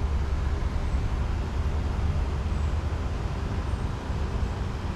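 Steady low outdoor rumble with an even background hiss, unchanging throughout, with a few faint high chirps over it.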